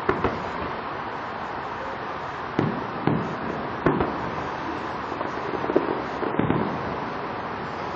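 Distant fireworks shells bursting: about half a dozen dull bangs at uneven intervals over a steady background hiss.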